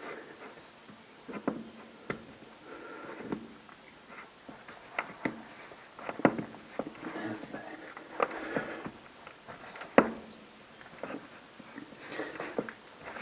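Tyre bead being worked by hand onto a Jenex V2 Aero 150 roller ski wheel rim: scattered sharp clicks and knocks with stretches of rubber rubbing, the loudest knock about ten seconds in.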